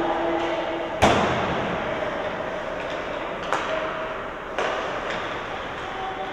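Ice hockey play in an arena: a sharp bang about a second in that echoes around the rink, then two lighter knocks a few seconds later, like a puck or players hitting the boards, over a steady background of distant voices.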